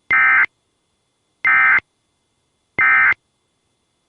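Emergency Alert System SAME end-of-message data tones: three short, loud bursts of buzzy digital data tone about 1.3 seconds apart, marking the end of the alert.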